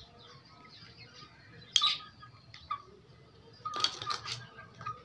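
Young chickens pecking feed from a steel bowl on concrete, their beaks and feet clinking sharply on the metal. There is one loud clink a little under two seconds in, and a rattling cluster around four seconds as a young cockerel steps onto the bowl and tips it.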